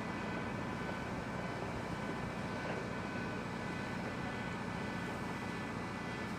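Steady mechanical drone of workshop machinery, even and unbroken, with a few faint steady tones over it.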